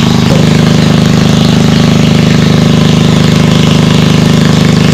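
A small engine running steadily and loud, most likely the engine of the water pump draining the fish pond. Its pitch steps up slightly just after the start and then holds even.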